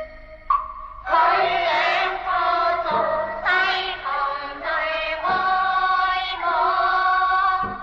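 Cantonese opera singing with its accompanying instrumental ensemble: a held instrumental note, then a sung line begins about a second in and carries on.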